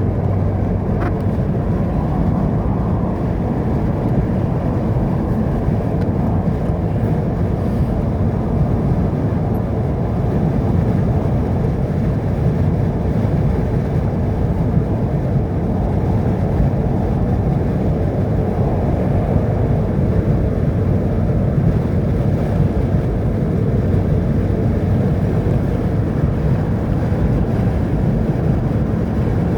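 Steady low rumble of a vehicle on the road.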